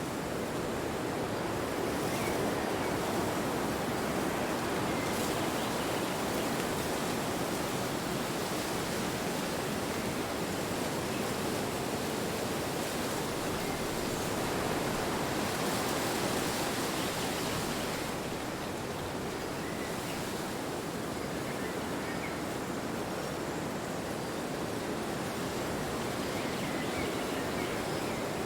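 Wind blowing in a steady rush, swelling and easing gently.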